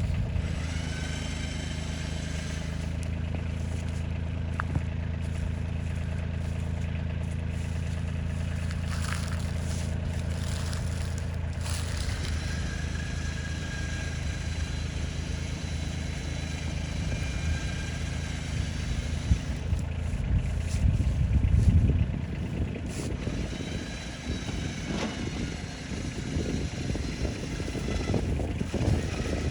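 Kioti CK2610 compact tractor's diesel engine running just after starting, holding a steady speed, then revving up about twenty seconds in and dropping back.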